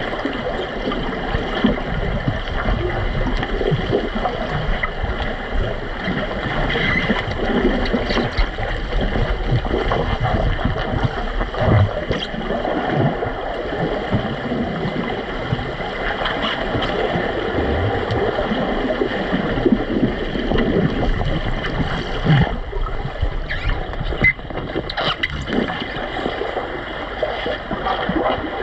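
Water heard through an underwater camera: a constant muffled churning and gurgling of bubbles and water stirred by swimmers kicking with fins, with scattered dull knocks.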